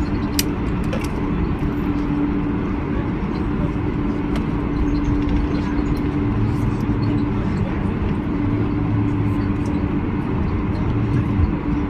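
Boeing 747-400 airliner noise: a steady rumble with a constant low hum and a few faint clicks.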